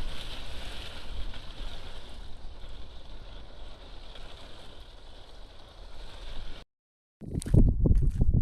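Gusting wind blowing across the microphone, a steady rushing noise with a low rumble. It cuts off abruptly about six and a half seconds in, and after a short gap a run of loud thumps and knocks starts near the end.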